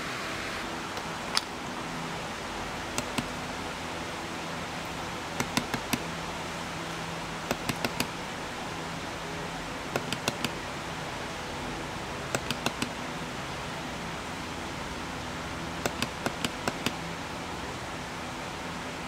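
A flashlight's push-button switch being clicked in quick groups of two to five sharp clicks every few seconds, over a steady hiss, as it steps through its brightness modes up to turbo.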